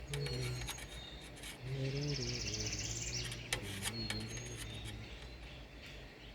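Small birds chirping, with one short buzzy trill about halfway through, over scattered light clicks and a low background hum.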